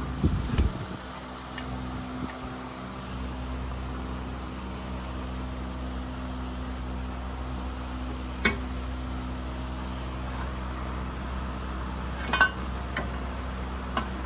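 A few scattered metallic clicks and knocks as a turbocharger's compressor housing is worked loose by hand. There is a cluster in the first second and single knocks later on, over a steady low hum.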